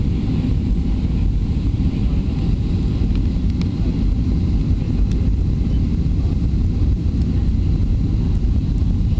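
Steady low cabin rumble of a Boeing 737-400 on final approach, its CFM56 engines and the rushing air heard from a window seat over the wing.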